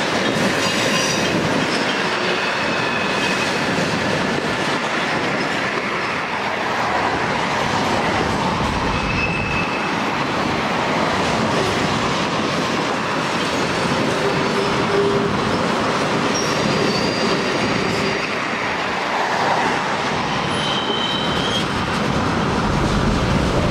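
Two freight trains of tank cars and hooded cars rolling past each other: a steady rumble and clatter of wheels on rail. Short high-pitched wheel squeals break through several times as cars take the curves and switches.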